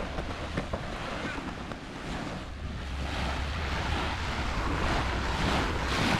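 Wind buffeting the microphone over the wash of waves on a beach, the surf noise swelling over the last few seconds.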